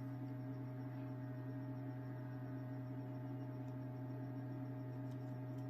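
Hot-air SMD rework station running with a steady hum made of a few constant tones, while it heats solder to seat a new charging jack on a phone circuit board.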